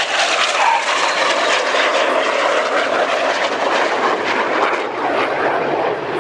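Loud, steady jet noise of BAE Hawk T1 display jets flying low passes, a rushing sound from their turbofan engines.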